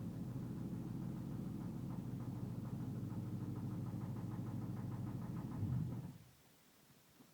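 Ford Coyote 5.0 V8 crate engine idling with a steady knock that the owner traces to the passenger-side cylinder head, a knock that appeared after a single wide-open-throttle run on the freshly broken-in engine. About six seconds in there is a brief swell, and then the engine stops.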